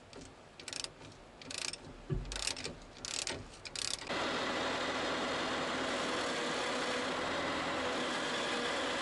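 A ratchet wrench clicks in about six short strokes, tightening a hydrostatic pump line fitting. About four seconds in, this gives way abruptly to the Bobcat T250's diesel engine running steadily, the machine running again after the leak repair.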